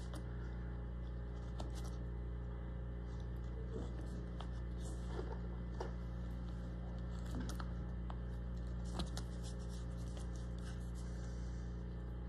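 Faint, irregular scrapes and small clicks of a hand-held V-tool cutting shallow grooves into a small wooden block, over a steady low hum.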